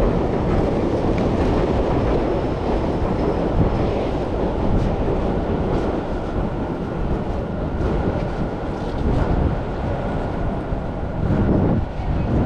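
Steady rumble of a busy city street beside railway tracks, with a faint steady high whine running through it.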